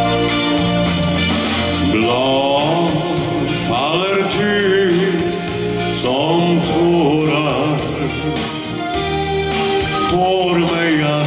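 Live band music: a melody line that glides and wavers in pitch over held bass and keyboard notes, with no words.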